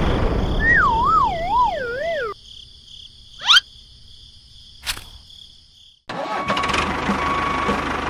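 Engine noise for a toy tractor, with a wavering cartoon whistle sliding down in pitch over it. The engine cuts out about two seconds in, leaving a quick rising swoop and a single click, then the engine noise comes back about six seconds in.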